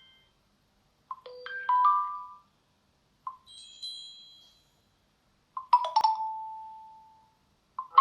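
Xiaomi Mi 9 Lite phone sound effects: three separate short electronic chime jingles, a second or so apart, the last ending in a single tone that rings on and fades.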